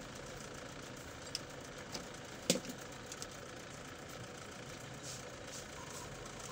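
Steady low background hum with a few light ticks of wires and alligator clips being handled, and one sharper click about two and a half seconds in.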